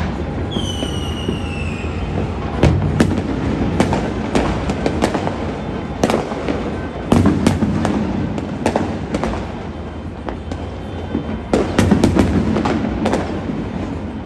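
Fireworks and firecrackers going off all over a city: a continuous rumble of many distant explosions with sharp cracks coming in clusters. A high whistle falls in pitch for about a second and a half near the start.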